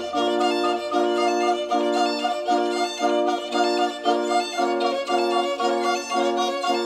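Instrumental background music: a quick, steady run of short repeated notes.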